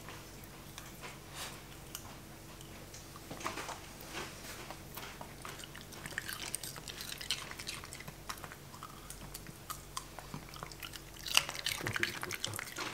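A dachshund crunching and chewing pieces of raw cucumber, scattered crisp bites that grow louder and closer together near the end.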